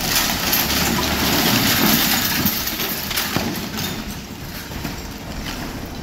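Brick-and-concrete house collapsing under demolition: falling masonry and rubble crash down in a loud, dense noise that is heaviest over the first few seconds and then slowly dies down.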